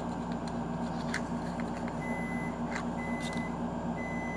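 Fingers handling a small lipstick box, a few faint clicks over a steady low hum. From about two seconds in, a high electronic beep sounds three times, about once a second, each beep about half a second long.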